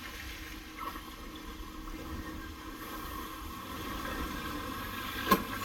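Water sloshing and splashing as a vehicle drives slowly through a muddy puddle, building a little toward the end, with a single sharp knock near the end.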